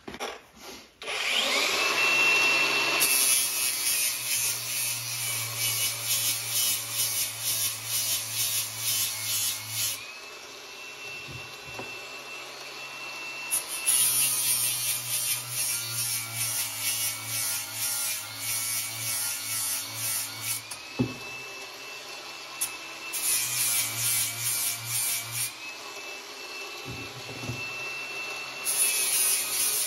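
Angle grinder with a flap wheel whining as it spins up, then grinding the steel end of a hydraulic top link down in several passes, running free with a steady whine between passes. The end is being taken down a little at a time so it will fit its bracket.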